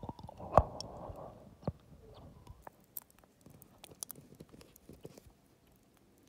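Wet mouth sounds from an open mouth holding a gummy candy on the tongue: a short breathy rush with a few sharp saliva clicks at the start, then faint scattered wet clicks that die away near the end.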